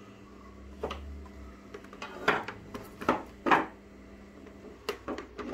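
Engine parts and tools being picked up and handled on a bench: a handful of separate clinks and knocks, the loudest between about two and three and a half seconds in.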